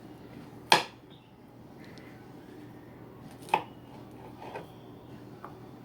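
Kitchen knife slicing a strawberry: two sharp knocks about three seconds apart as the blade comes down through the fruit onto the surface below, then a couple of fainter taps.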